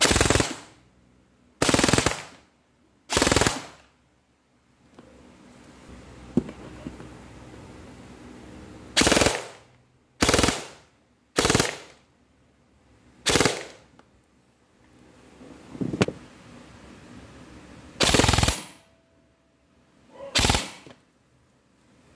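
Airsoft gun firing nine short full-auto bursts, each about half a second long and made of rapid shots, with pauses of one to five seconds between them.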